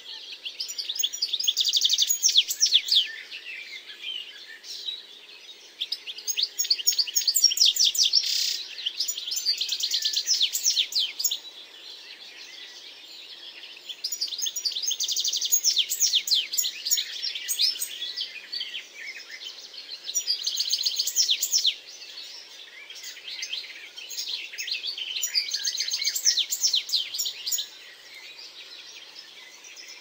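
Songbirds singing: rapid, high chirps and trills in loud bouts several seconds long, with quieter stretches between them over a faint steady background hiss.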